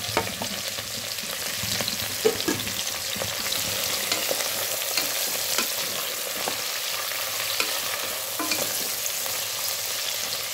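Freshly added sliced onions frying in hot oil in a metal pot with a steady sizzle. They are stirred with a wooden spatula that scrapes and knocks against the pan in short clicks.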